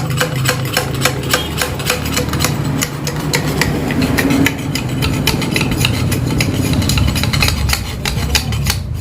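Yamaha RX-King two-stroke single running at idle through its freshly gutted exhaust: a steady low note overlaid with a rapid, crisp crackle, the 'garing ngorok' tone the exhaust was reworked to give.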